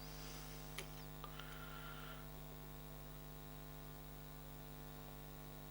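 Steady low electrical mains hum, with a few faint small clicks about a second in.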